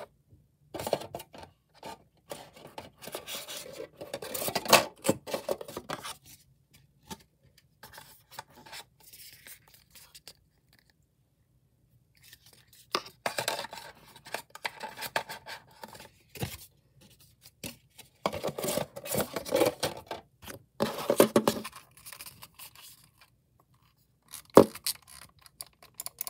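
A wireless computer mouse and its USB receiver being handled: irregular bursts of plastic scraping, scratching and clicking, with short pauses between them. Rapid, evenly spaced clicks start near the end.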